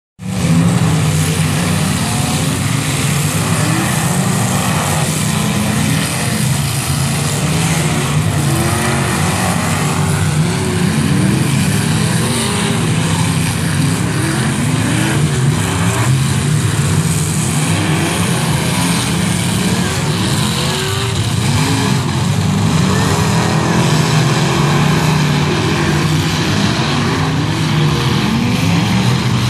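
Several off-road derby cars' engines revving hard together. Their pitches rise and fall again and again over a constant loud drone.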